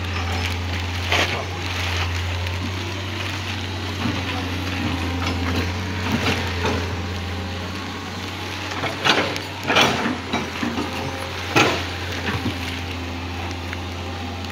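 Excavator's diesel engine running steadily in the background, with irregular crunching footsteps on loose rock and gravel rubble, the loudest coming about nine to twelve seconds in.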